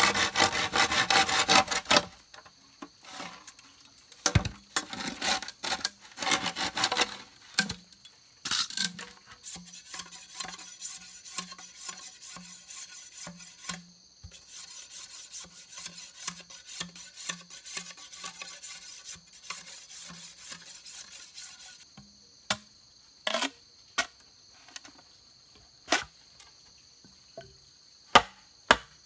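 A saw rasping through a green bamboo pole in quick strokes, then scattered rasping and light even knocking on bamboo at about two a second. From about two-thirds of the way in come sharp single knocks a second or two apart: a stick striking the back of a knife blade lodged in an upright bamboo pole, splitting it.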